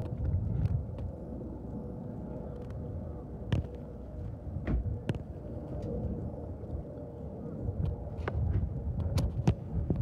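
Wind buffeting the phone's microphone, a low uneven rumble that grows stronger near the end, with a few sharp clicks from the phone being handled.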